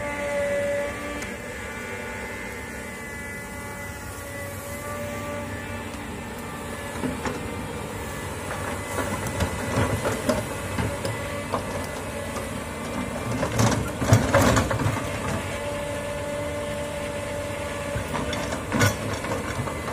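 Komatsu tracked hydraulic excavator's diesel engine running steadily as it works brush and soil with its bucket. From about seven seconds in, irregular clanking, scraping and cracking of the bucket, steel tracks and brush come in, loudest about fourteen seconds in and again near the end.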